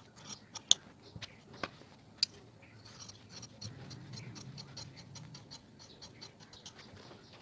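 Scissors cutting along a strip of paper pasting: a series of sharp snips and crisp cutting sounds, a few louder snips in the first couple of seconds, then a quicker run of several snips a second in the second half.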